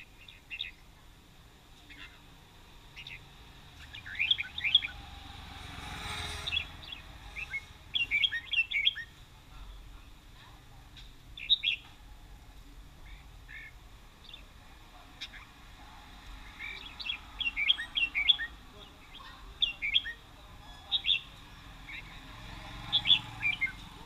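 Caged red-whiskered bulbuls singing in repeated bursts of quick, high chirping notes, with pauses between the phrases. A brief rush of noise comes about six seconds in.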